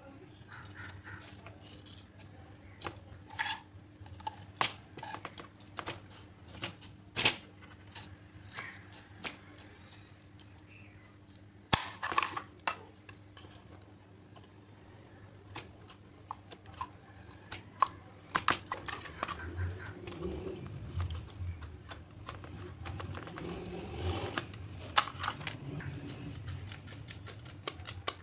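Steel scissors cutting lengthwise through a plastic silicone sealant cartridge: a run of irregular sharp snips and clicks, coming thicker in the last third.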